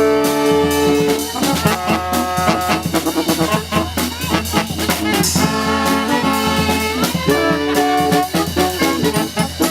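Brass band playing live, with trombone, trumpet and saxophone. The horns hold a chord for about a second, then break into quick short notes over sharp, regular hits, returning to held chords a few seconds later.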